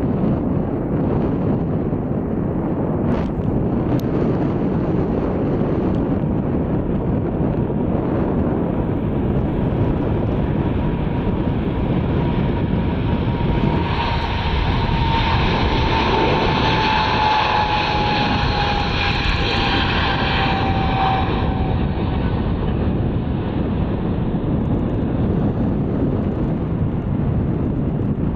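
Boeing 777-300ER's GE90-115B turbofans at takeoff power during the takeoff roll, a loud steady rumble. As the jet passes, around the middle, a high whine slides down in pitch and a hiss swells, then both fade as it moves away.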